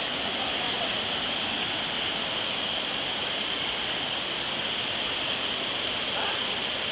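Floodwater rushing through in a torrent: a steady, unbroken rush that holds the same level throughout.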